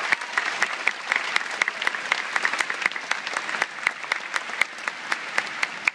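Audience applauding, with a few loud single claps close by standing out from the crowd's clapping; the applause grows quieter toward the end.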